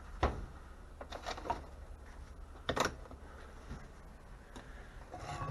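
A few light, separate metal knocks and clicks from a microwave oven transformer being worked apart by hand. The strongest comes a little before the middle.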